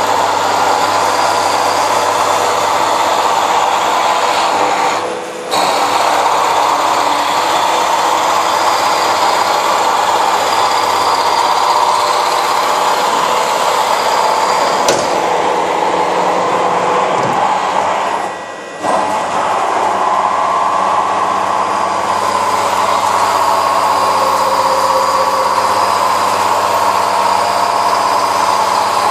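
Milling machine running as its cutter mills a profile for a better surface finish: a steady mechanical whine with several tones at once, briefly dropping away twice.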